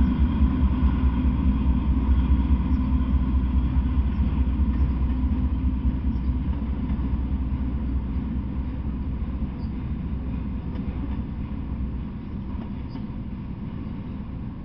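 Freight train of autorack cars rolling past on the rails: a steady low rumble that slowly fades as the train's head end moves away.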